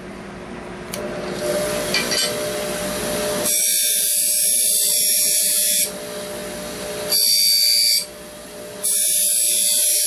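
Bench buffer motor running with a steady whine, and its fine Scotch-Brite deburring wheel hissing as the corners of a bandsawn titanium bar are pressed against it. There are three passes of one to two seconds each, the first starting about three and a half seconds in.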